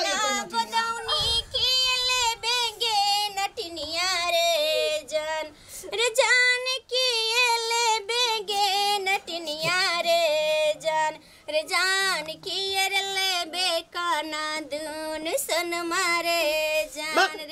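A woman singing a Maithili godna geet, the folk song sung while tattooing, solo in a high voice with wavering, drawn-out notes and short breaths between phrases.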